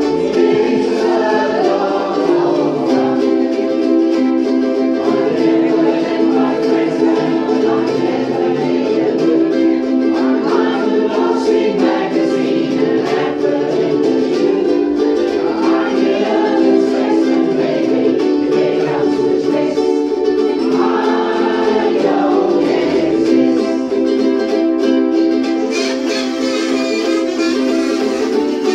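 A ukulele ensemble strumming a song together, with voices singing along.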